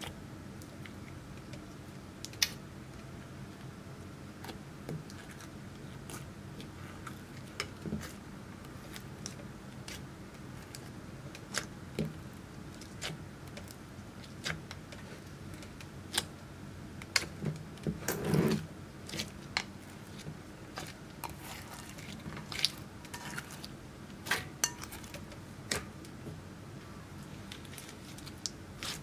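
Clear slime loaded with crushed eyeshadow powder being folded, pressed and stretched by hand: irregular sticky clicks and small pops, with one longer squelch about two-thirds of the way through.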